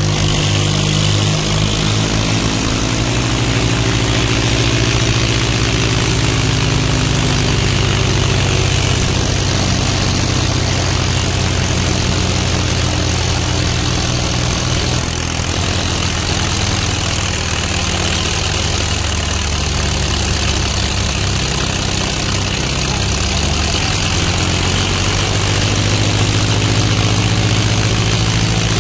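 Tractor diesel engines running steadily under heavy load as two tractors, a New Holland 3600-2 and a Swaraj, pull against each other in a tug-of-war.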